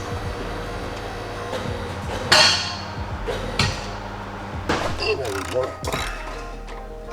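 Metal tools and exhaust parts knocking and clinking, a handful of sharp knocks, the loudest about two seconds in with a short ring.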